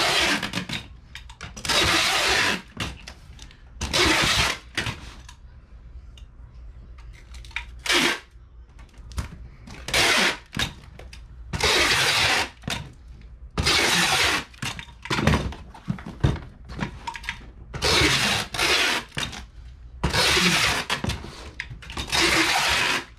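Packing tape screeching off a handheld tape gun as a cardboard shipping box is taped shut: about ten loud ripping pulls of up to a second each, with short pauses between.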